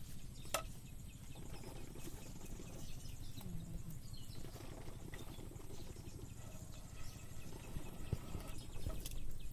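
Raw chicken pieces handled by hand and dropped into a steel bowl: soft wet handling noises, with a sharp click about half a second in and a few smaller ones near the end, over a steady low background noise.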